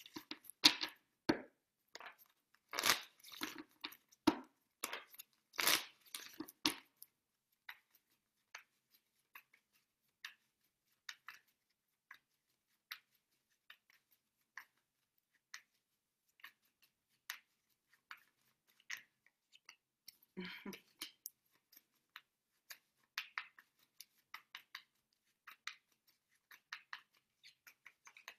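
A deck of oracle cards being shuffled and handled: a quick run of crisp clicks and crackles for the first six or seven seconds, then only scattered soft clicks and rustles.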